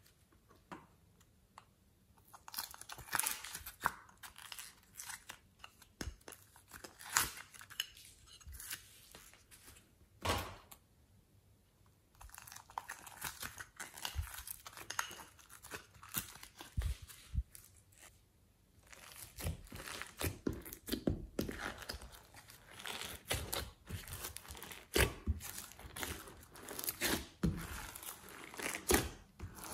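Glossy slime layered with soft clay being peeled, squeezed and folded by hand, giving irregular crackles, pops and clicks. There are short quiet pauses between handlings, and the sounds come thicker in the last third.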